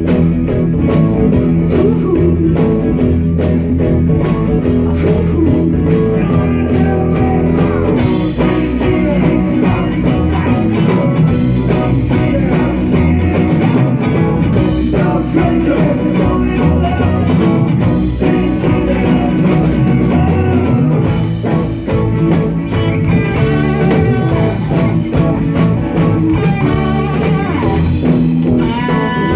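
Live band playing blues-flavoured rock with electric guitar, loud and without a break; a violin line comes in right at the end.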